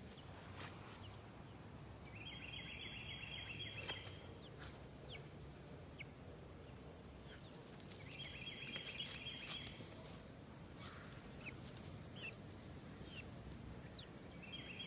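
Backyard chickens scrambling about, with a few short high chirps and soft ticks. A buzzy trill of unseen source comes and goes three times, each lasting one to two seconds.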